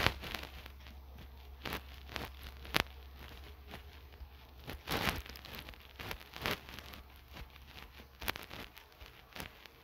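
Irregular soft taps and rustles of a phone being handled as a finger draws on its touchscreen, picked up by the phone's own microphone, over a steady low hum. There is one longer rubbing sound a little before halfway.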